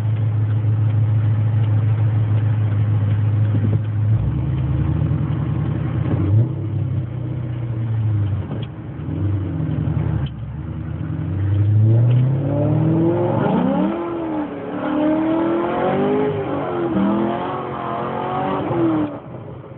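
Modified LS2 6.0-litre V8 of a Pontiac GTO, with cam, headers and straight pipes without catalytic converters, heard from inside the cabin: it holds a steady note, revs unevenly, then pulls hard from a standstill with traction control on. Its pitch climbs and drops back several times before it cuts off suddenly near the end.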